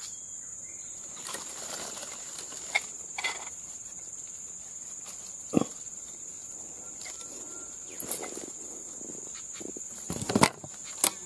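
Insects droning steadily at a high pitch, with scattered short rustles and knocks from a bamboo fishing pole and line being handled among the streamside plants. The loudest burst of handling noise comes about ten seconds in.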